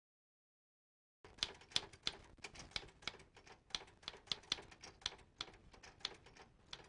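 Irregular clicking of keys being typed, a few strokes a second at uneven spacing, starting about a second in.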